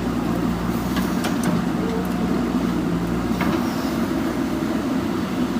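Heavy diesel machinery engine running steadily, with a few faint knocks.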